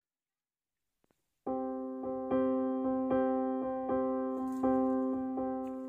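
Slow piano-style keyboard music, with notes struck at an even pace, starting about a second and a half in after silence.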